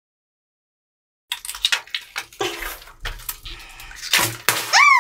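Rubber water balloon squeaking, its water squelching, as hands squeeze and knead it, starting a little over a second in. Near the end a loud tone starts, sliding down in pitch.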